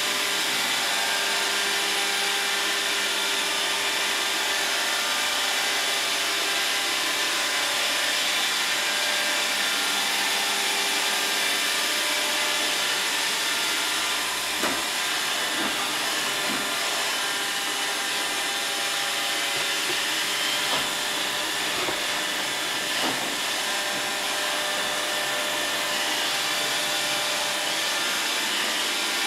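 Roomba robot vacuum running: a steady whirring hiss with several steady motor tones, and a few brief knocks in the second half.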